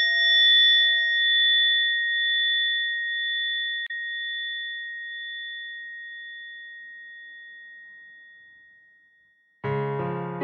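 A struck bell ringing out in one long, slowly fading tone of several steady pitches, with a brief click about four seconds in. Soft piano music starts near the end.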